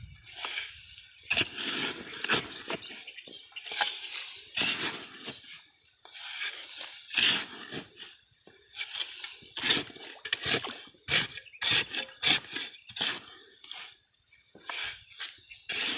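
Irregular scraping and rubbing noises in quick, uneven bursts, with short pauses between them: hands digging and groping in a muddy catfish hole.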